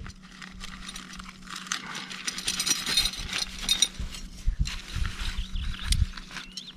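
Rustling, crinkling and light clicks of small items and packaging being handled by hand, with a burst of crinkling in the middle.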